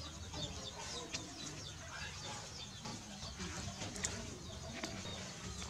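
Chickens clucking and small birds chirping faintly in a yard, with a couple of sharp clicks about four and five seconds in.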